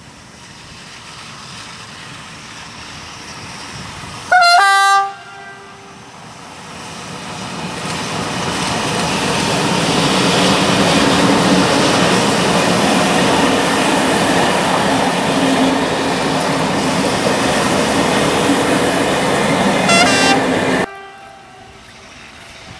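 Electric passenger train sounding a two-tone horn, the high note then a lower one, about four seconds in. It then passes close by with loud rolling wheel and rail noise, sounds a second, shorter horn blast near the end, and the noise cuts off suddenly.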